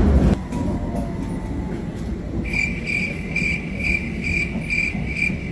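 London Underground train's door-closing alarm: a high beep repeating about twice a second, starting about two and a half seconds in, over the low rumble of the carriage.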